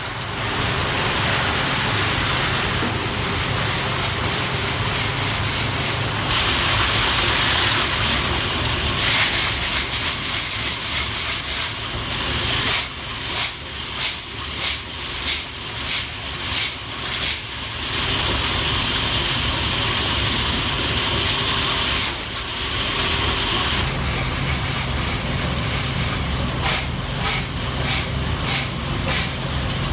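Loose metal lamp-holder shells clattering as they are shaken out of a plastic basket into a hexagonal metal drum, over the steady noise of a running machine. The clatter comes in rhythmic loud bursts about twice a second in the middle and again near the end.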